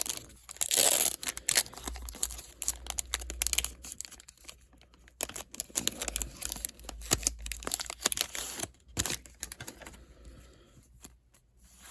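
Foil Pokémon booster pack wrapper crinkling and tearing as it is opened: a dense run of crackles, loudest about a second in, dying down near the end.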